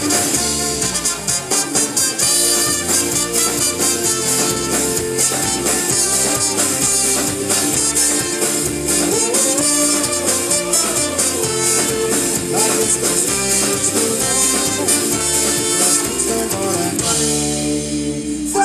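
A live ska-fusion band playing at full volume: trumpet and trombone over drums, electric bass and acoustic guitar. Near the end the drums stop and the band holds a chord.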